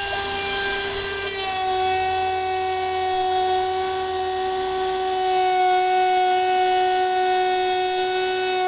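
CNC router spindle running at high speed with a steady high whine while its cutter surfaces a wooden cutting board flat. The pitch steps up slightly about a second and a half in.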